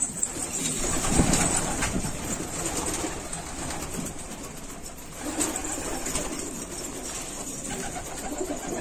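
Many domestic pigeons cooing together inside a loft, a steady overlapping murmur of calls.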